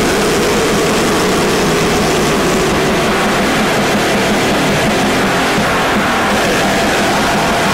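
Lo-fi bestial black metal/noise recording: a dense, steady wall of harsh distorted noise and guitar, loud and without vocals.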